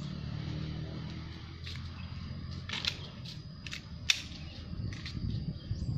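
A handful of short, sharp cracks at irregular intervals over a steady low rumble.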